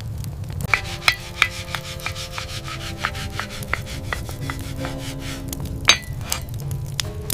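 Hand-crafting sounds: rubbing and a run of light, irregular taps, the sharpest about six seconds in, over sustained low background music tones.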